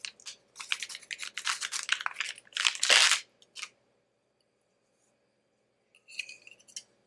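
Silvery anti-static plastic bag crinkling and rustling in rapid crackles for about three seconds as it is cut and opened to get the circuit board out. About six seconds in come a few light clicks as the board is set down on a stone countertop.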